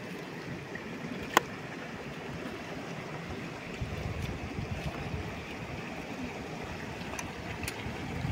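River water flowing steadily, with one sharp click about a second and a half in and a low rumble joining from about four seconds in.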